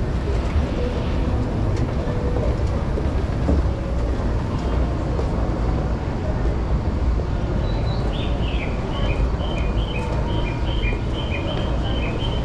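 Steady low rumble of a busy railway station. From about two-thirds of the way in, a run of quick, evenly spaced two-note electronic bird chirps plays, about four a second: a Japanese station's birdsong guidance signal for blind passengers.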